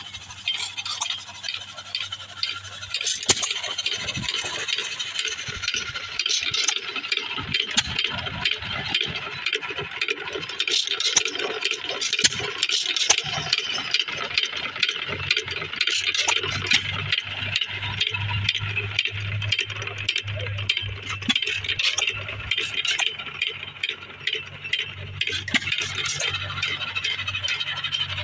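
Small single-cylinder stationary engine running with a quick, even clatter of clicks. A steady low hum joins about halfway through.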